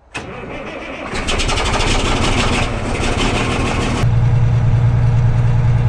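Large diesel engine being cranked, a rapid even clatter for about three seconds, then catching about four seconds in and running at a steady low hum.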